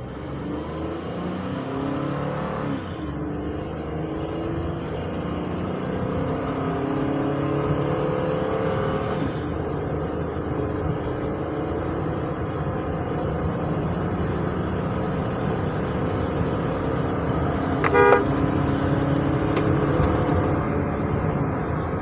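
Ford Transit van's engine pulling under full throttle, heard from the cab, with road and tyre noise. The engine note climbs in pitch, drops back about 3 and 9 seconds in, then holds high and steady at speed. A short beep sounds about 18 seconds in.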